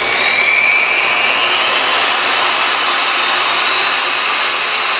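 Tacklife PPGJ01A 1500 W variable-speed rotary buffer polisher running with no load on its pad. Its motor whine rises steadily in pitch as the speed is stepped up from the lowest to the highest setting.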